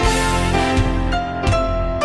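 Background music: a soft instrumental track with sustained notes changing about every three quarters of a second.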